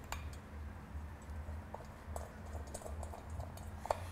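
Light metallic clicks and ticks as small bolts are set into a Sea-Doo 4-TEC primary oil pump cover plate and started by hand, with one sharper click near the end, over a low hum.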